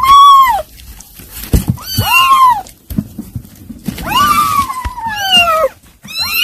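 Kittens mewing over and over, high calls that rise and fall, several overlapping, the longer ones near the end sliding down in pitch. A few soft knocks come in between.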